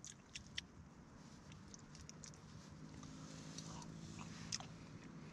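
Light clicks of steel chopsticks against a metal plate of raw beef tartare, then quiet chewing, with a faint low steady hum starting about three seconds in.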